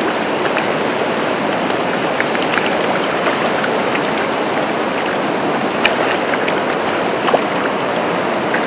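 River current flowing steadily around wading legs in shallow water, with a few brief sharp splashes from a hooked American shad thrashing at the surface.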